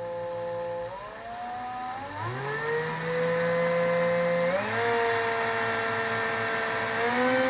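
Electric drill motor running, spinning a small circuit board on its chuck, with a steady whine that steps up in pitch four times as the trigger is squeezed further.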